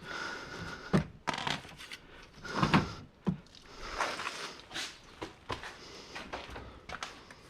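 Irregular clunks and knocks of scrap being moved and set down, with scuffing in between, as car batteries are shifted out of the garage.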